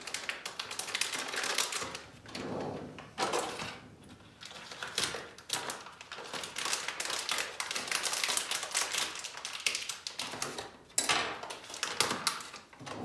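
A cocoa packet being opened and handled: a dense, irregular run of crinkling clicks and rustles from the packaging.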